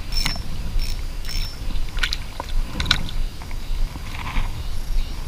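A spinning reel being cranked, with a soft tick about twice a second during the first second and a half, over water sloshing against the camera. A small hooked fish splashes as it skitters across the surface toward the angler.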